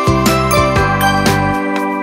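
Background music with a steady beat and bright, quick notes at about four a second.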